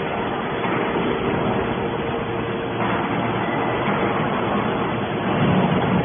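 Y81Q-1350 forward-out hydraulic scrap metal baler running: a steady mechanical hum with a constant low tone, growing a little louder near the end.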